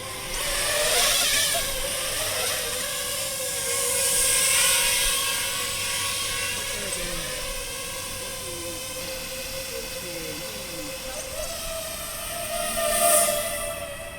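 DJI FPV drone's propellers whining at a steady pitch over a rushing hiss. The sound swells louder about a second in and again around the middle, and is loudest near the end, where the pitch steps up a little.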